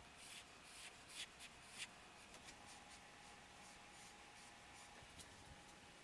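Near silence, with about five soft scraping strokes in the first two seconds and a few light ticks later: faint handling of a paint bottle on the canvas.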